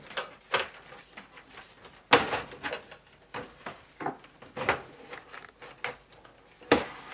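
Handling noise from a Commodore 64 being reassembled: scattered light clicks and taps from its plastic case and parts, with a sharper knock about two seconds in and another near the end.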